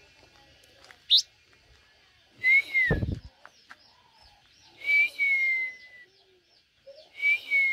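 Caged blue-winged minla singing: three loud, clear whistled notes, each sliding slightly downward, about two and a half seconds apart, with a quick rising note before them and soft high chips in between. A low thud sounds about three seconds in.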